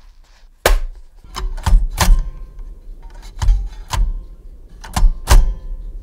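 Vintage manual typewriter keys struck one at a time, about eight sharp clacks at an uneven pace, each with a deep thud, picked up through a magnetic piezo contact microphone clamped to the typewriter's metal body.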